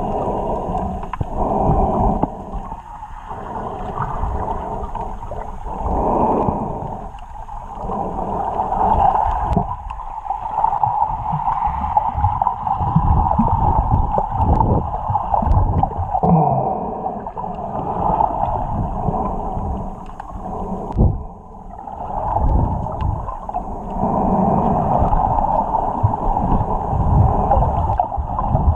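Muffled water sloshing and gurgling, rising and falling irregularly with low thumps.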